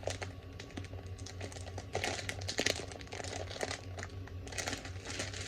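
Plastic crinkling and irregular small clicks of Lego pieces being handled and sorted.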